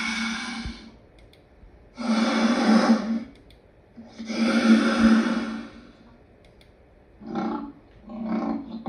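Lion roaring: three long, breathy calls about two seconds apart, followed by shorter grunts beginning about seven seconds in, the usual pattern of a lion's roaring bout winding down into grunts.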